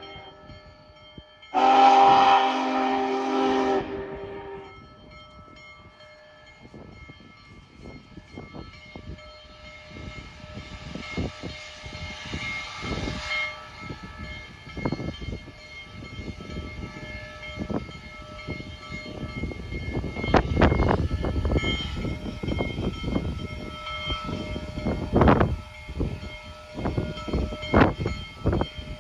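Union Pacific Big Boy No. 4014's steam whistle blows one chord blast about two seconds in, the second of its highball blasts. Then the 4-8-8-4 articulated locomotive's exhaust starts chuffing, the beats coming faster and louder as it pulls away under load on the upgrade, heaviest from about twenty seconds.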